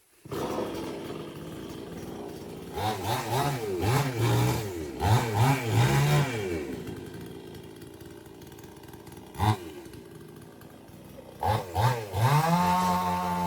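Chainsaw idling, then revved in several quick bursts, blipped once more, and finally held at high speed near the end.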